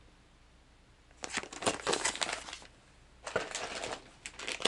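Plastic soft-bait packages crinkling and rustling as they are handled, in two bouts: one starting about a second in and another near the end.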